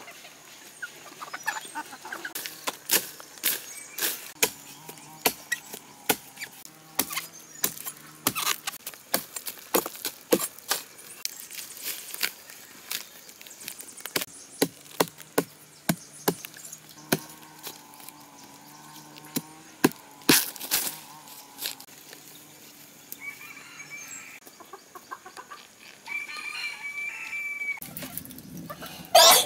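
Chickens clucking, with many sharp knocks scattered throughout and one louder sharp crack near the end.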